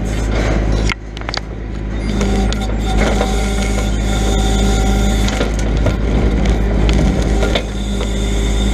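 Grapple truck's engine running steadily to power the hydraulic brush loader. It drops off about a second in and builds back up over the next few seconds, with occasional knocks and cracks.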